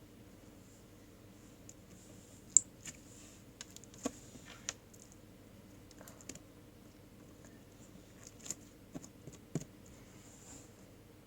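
Scattered small, sharp clicks and taps in two loose clusters, the loudest about two and a half seconds in, over a faint steady background.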